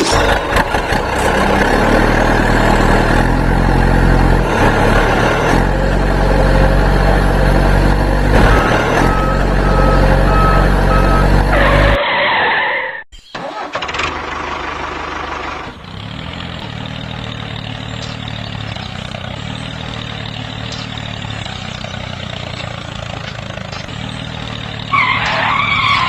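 A vehicle engine running steadily. About 12 seconds in it cuts off abruptly, and a quieter, steady engine sound follows.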